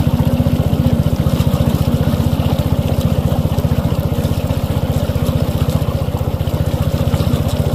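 Small boat engine running steadily under way, with an even, rapid pulse.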